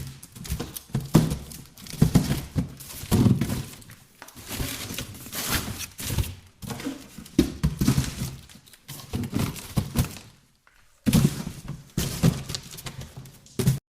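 Boxes being handled and rummaged through: repeated thuds and knocks as they are shifted and set down, with rustling and scraping in between. A short pause about ten seconds in.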